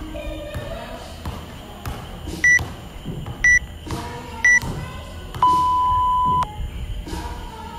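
Interval timer counting down the end of a work interval: three short high beeps a second apart, then one long, lower beep about a second long that marks the switch from work to rest.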